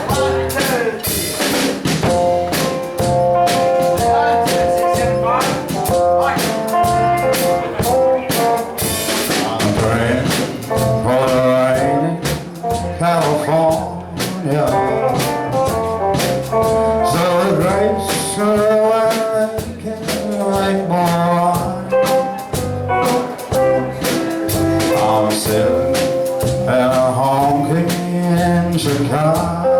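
Live band playing the instrumental introduction to a country song, with a drum kit keeping a steady beat under held chords and a wavering melodic lead line.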